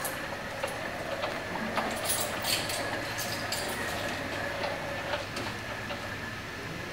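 Pepper robot's motorised omniwheel base driving along the floor: a steady motor hum with irregular clicks and rattles, busiest about two to three seconds in.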